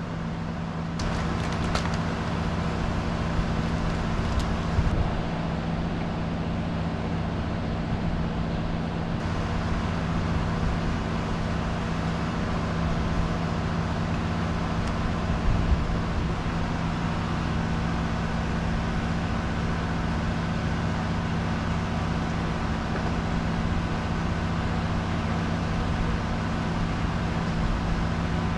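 Engine running steadily with a constant low hum, and a few light clicks and knocks in the first few seconds.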